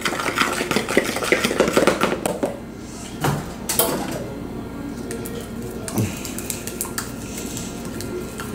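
Metal fork stirring dry flour in a plastic container: rapid scraping and tapping for about two and a half seconds, then a few scattered knocks of kitchenware.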